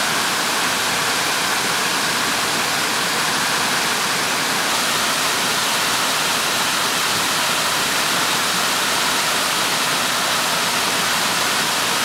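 Waterfall pouring into a shallow river pool: a steady, unbroken rush of falling water.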